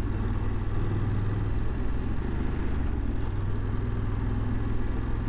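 Adventure motorcycle engine running steadily while riding at about 40 km/h, a low steady drone with wind noise on the helmet-level microphone.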